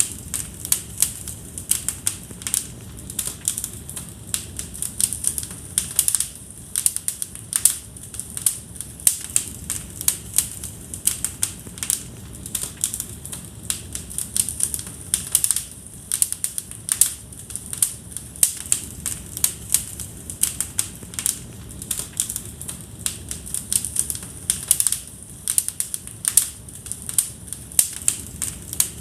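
Wood fire burning in a fireplace, crackling with irregular sharp pops several times a second over a low steady rush of flame.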